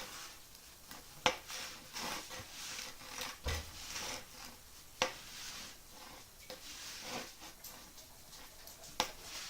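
Cloth rubbing and rustling as a surface is wiped dry by hand, with three sharp knocks about four seconds apart.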